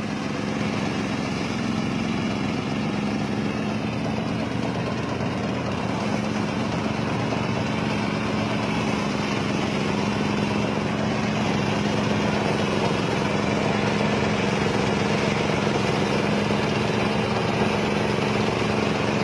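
Small engine running steadily at a constant speed, with an even hum.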